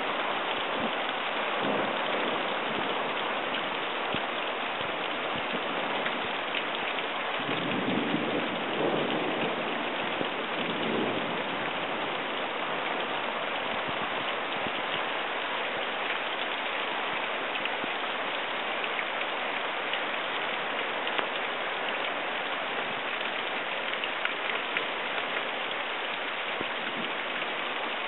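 Steady rain during a summer thunderstorm, with a low rumble of thunder from about eight to eleven seconds in.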